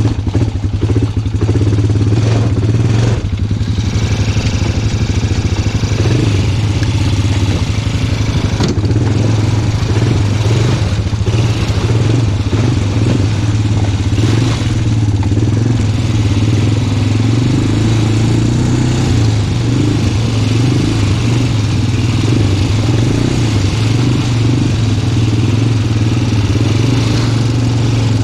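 Small off-road vehicle engine running steadily under load while riding, with the pitch shifting slightly as the throttle changes and a few brief clattering bumps.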